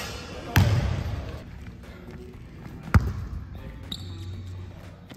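A basketball bouncing on a court: a few separate hard bounces rather than a steady dribble, the loudest about three seconds in.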